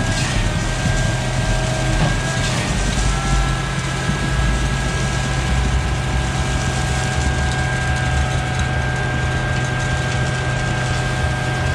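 Heavy diesel engine of a concrete pump truck running steadily, with a steady high whine over its low hum and a couple of brief knocks.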